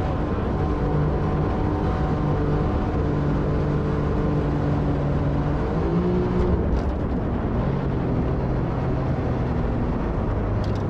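Jet boat under way: its engine runs at a steady drone, and the note drops slightly a little past the middle. Water rushes past the hull underneath.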